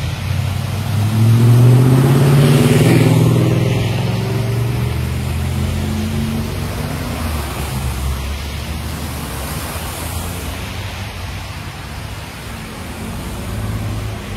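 Traffic driving through a flooded street: a vehicle's engine passes loudly about two seconds in, with the hiss of tyres through standing water, then steady traffic noise.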